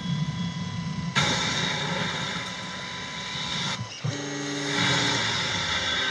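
Anet A8 3D printer running. A whirring noise comes on suddenly about a second in, and around four seconds in its stepper motors sound steady low tones for about a second as the print head travels across the bed.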